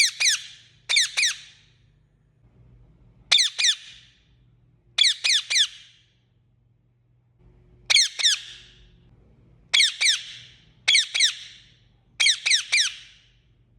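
Indian ringneck parakeet calling: short, high-pitched calls that drop in pitch, given in quick bursts of two or three, a burst every second or two.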